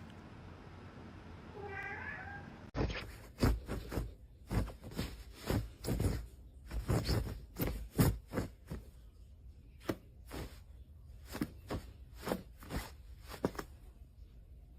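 A domestic cat gives one faint meow, followed by a run of irregular sharp knocks and thumps lasting about ten seconds.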